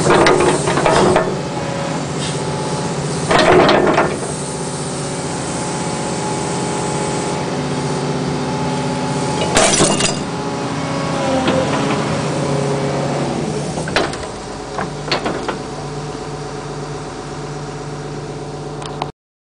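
Excavator's diesel engine running steadily, its pitch shifting as the hydraulics work the boom and bucket. Several sharp knocks and scrapes come through as the bucket works the ground, the loudest about ten seconds in as it reaches the glass bottle; the sound cuts off suddenly near the end.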